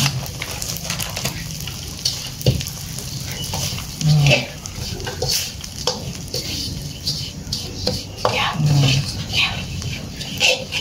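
Metal slotted spatula scraping and stirring dry Nestum cereal crumbs around a steel wok, in repeated strokes over a light frying sizzle. A short low voice-like hum comes twice, about four seconds in and near the end.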